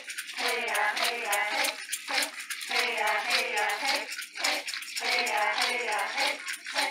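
Voices singing a chant in repeated phrases of about two seconds, three phrases with short breaks between them, over a hand rattle shaken in a quick steady beat.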